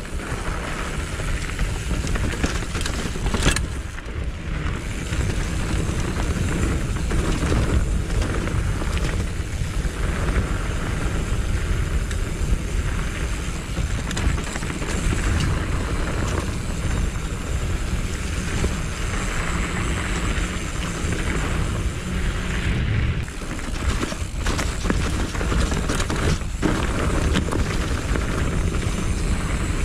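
A mountain bike riding a dirt trail, heard through an action camera's microphone: a steady wind rumble and tyre noise, with short knocks and rattles from bumps throughout.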